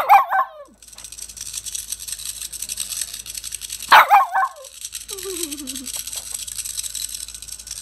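Small dog barking twice, about four seconds apart, each a sharp bark with a short yappy tail. A steady hiss runs underneath, and a faint wavering, falling whine follows the second bark.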